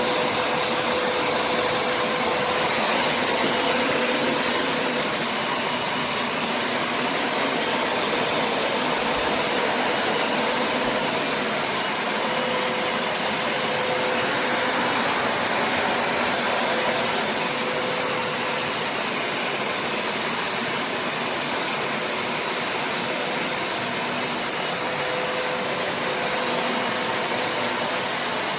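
Hoover Smartwash upright carpet cleaner running steadily: an even motor and suction drone with a few faint steady whines in it.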